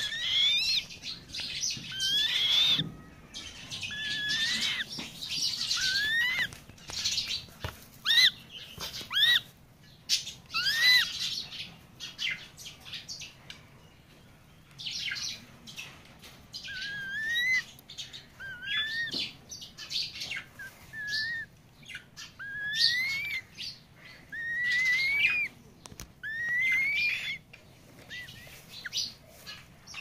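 Black-winged kite chick calling over and over: short, upward-sliding wheezy notes, one every second or two, with breathy hissing between them and a brief lull midway.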